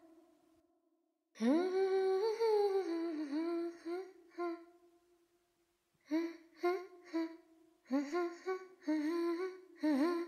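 A woman humming a slow tune: one long phrase with sliding pitch, then after a pause a string of short hummed notes.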